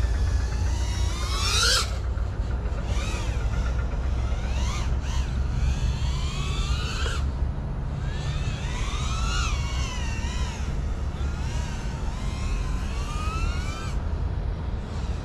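FPV quadcopter's motors whining in the air, the pitch sweeping up and down every second or two as the throttle is worked. A steady low rumble runs underneath.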